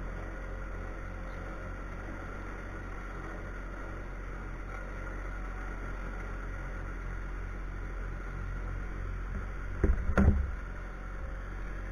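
Skid steer engine running steadily. About ten seconds in there is a brief loud knock.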